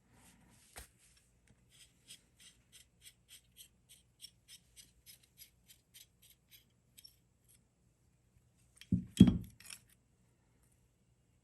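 Scissors snipping at a rubber gas line to cut off the leaking section, about three or four sharp clicks a second for several seconds. A louder knock and clatter comes near the end.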